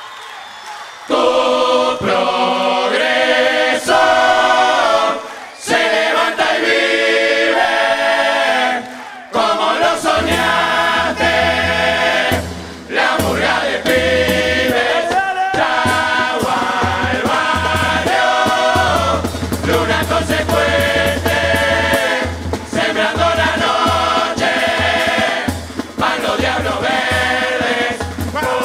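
Uruguayan murga chorus singing together in harmony, the voices coming in loud about a second in. From about ten seconds in, the murga's drums and cymbals play under the singing.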